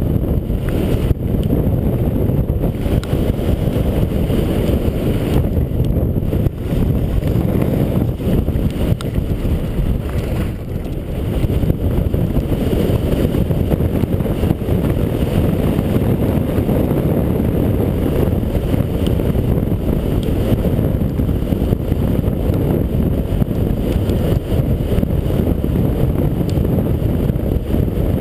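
Steady low wind rumble on the microphone from skiing downhill at speed, with the hiss of skis running over packed snow.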